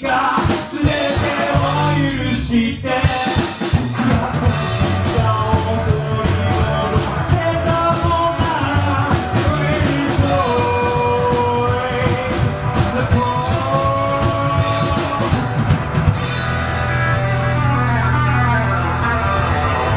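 Live rockabilly band playing loudly, with electric guitar, bass, drums and singing. Drum and cymbal hits run through most of it and stop about sixteen seconds in, leaving a low held chord ringing.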